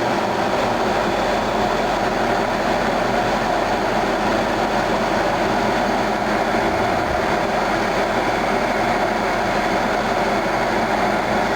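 Haas CNC lathe running steadily while machining an aluminum workpiece: a constant rushing noise with a few faint steady tones, unchanged throughout.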